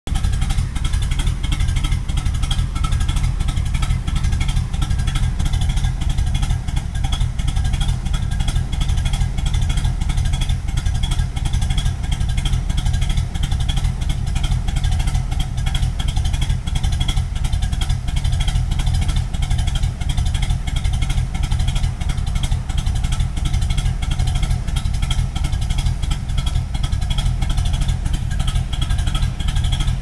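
Pontiac 400 V8 in a 1986 Firebird idling extremely rough through its dual exhaust, with a choppy, uneven lope that sounds like a big cam although the engine is not cammed. The owner guesses the fuel pump or fuel filter is starting to fail.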